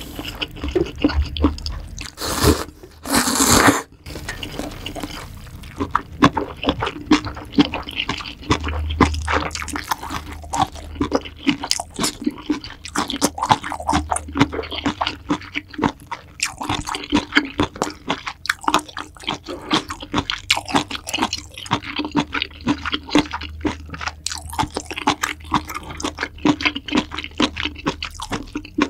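Close-miked eating of spicy seafood ramyeon: a dense run of wet chewing and mouth clicks, with two loud slurps of noodles or broth about two to four seconds in.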